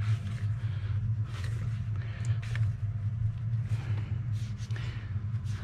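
A steady low hum runs throughout, with faint clicks and scrapes of hands twisting and working the clamps on a car's upper radiator hose.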